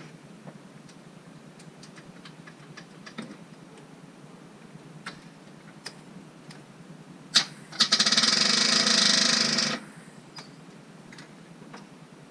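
A 1981 Jeep CJ7's starter solenoid clicks once, then chatters very fast for about two seconds before cutting off: the battery is too flat to crank the engine.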